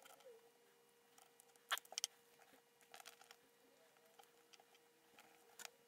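Faint scratching and scattered sharp clicks of fingernails picking at a sticker and handling the plastic case of a USB fingerprint scanner, with the two loudest clicks a little under two seconds in.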